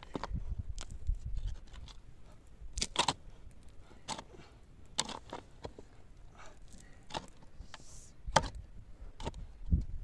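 Steel shovel digging a hole in dry, stony earth: irregular scrapes and crunches as the blade bites into the soil and lifts it out, about one stroke every second or so.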